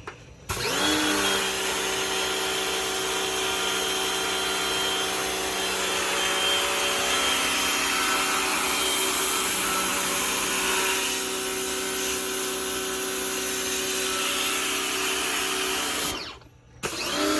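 Rock&Rocker HWY12 pressure washer running: a steady motor whine over the hiss of the water jet. It starts up about half a second in, cuts out briefly near the end, and starts again.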